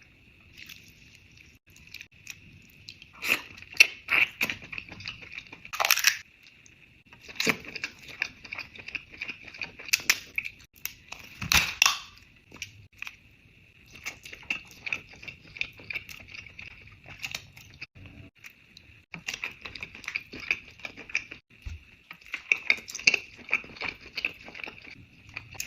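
Close-miked eating of a crab boil: crab shells cracking and crunching, with chewing in between, in irregular spurts. Several sharp cracks stand out, the loudest about halfway in.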